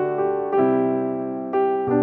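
Background piano music: slow, gentle chords, with new notes struck about half a second in and again near the end, each fading away.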